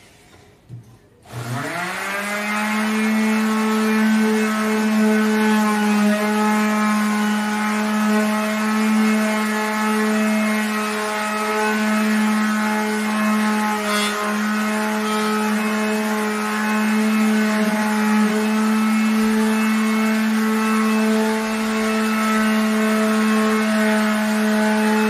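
Fisch 180 W electric orbital sander started about a second in, its motor spinning up quickly to a steady hum, then running steadily while sanding a plywood tabletop.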